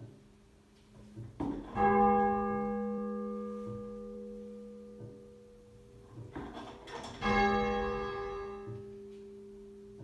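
Half-muffled 10 cwt church tenor bell tolling: two strokes about five and a half seconds apart, each ringing on and slowly fading, with a few faint knocks before each stroke.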